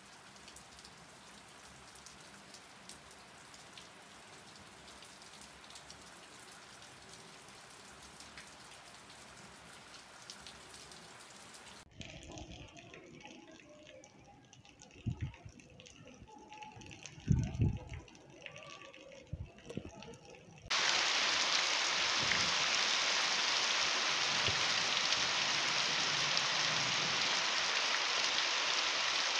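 Rain falling steadily on a clay-tile roof. After a cut there is a quieter stretch with a few short low thumps in the middle. Then, about two-thirds of the way through, a much louder, even hiss of heavy rain takes over.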